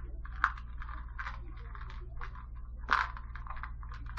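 Plastic parts bag crinkling and rustling as small hardware is handled and sorted, with two sharper clicks, one about half a second in and one near three seconds.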